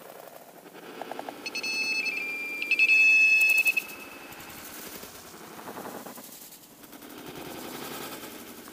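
Electronic beeper collar on a hunting dog giving a rapid run of high beeps for about two seconds, starting a second or so in, over the rustle of footsteps in dry leaves.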